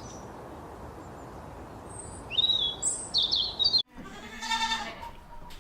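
Small bird chirping high and quick over a steady background hiss. After an abrupt cut about four seconds in comes one long, pitched bleat from a goat or sheep-like animal.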